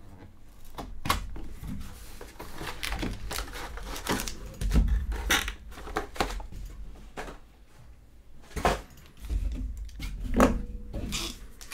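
A cardboard trading-card hobby box being opened by hand and its card packs tipped out onto a table: an irregular run of cardboard rustles, taps and clicks with a few heavier thumps.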